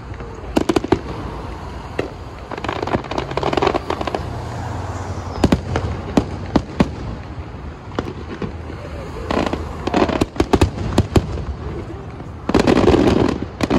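Aerial fireworks shells bursting: a series of sharp bangs, some in quick clusters, with two longer noisy stretches, one about three seconds in and one near the end.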